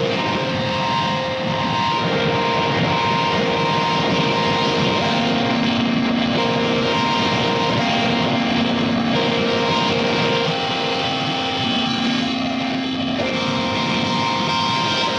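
Harsh noise music: a dense, steady wall of distorted noise with a few held electronic tones that cut in and out every second or two, a lower tone joining about five seconds in.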